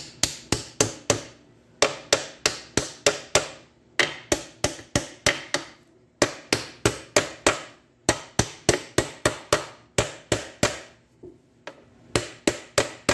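Hammer tapping a steel bearing race into its bore in a Tremec TR3550 transmission's aluminium case. Quick runs of sharp strikes come about four a second, with short pauses between runs.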